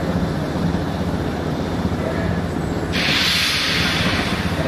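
Steam locomotive E 901 starting to blow steam from its cylinder drain cocks: a sudden loud hiss about three seconds in that carries on, over a steady low rumble.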